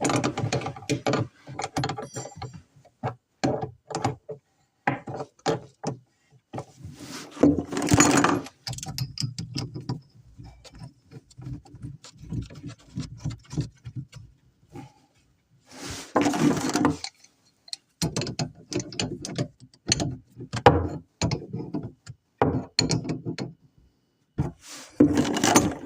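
Tools and parts being worked during bathroom vanity installation: many sharp clicks and knocks, broken by a few bursts about a second long of a whirring small motor.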